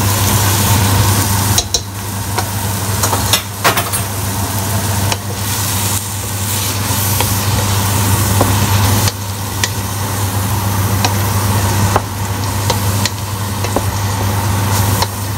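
Bitter melon and egg sizzling in a pot while a wooden spatula stirs them, with scattered scrapes and knocks against the pot. A steady low hum runs underneath.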